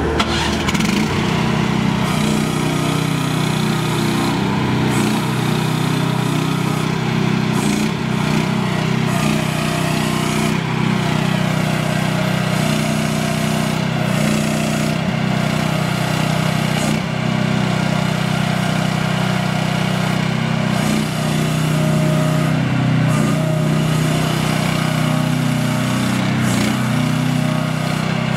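AGT Industrial H12R mini excavator's small engine running steadily, its pitch wavering slightly as the hydraulic boom, arm and bucket are worked.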